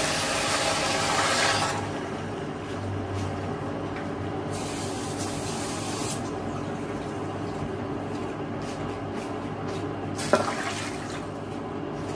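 Water poured from a mug into a cooking pot: a loud splashing rush for about the first second and a half, then a second, shorter rush of noise around the middle. A steady low hum runs underneath, and there is one sharp knock about ten seconds in.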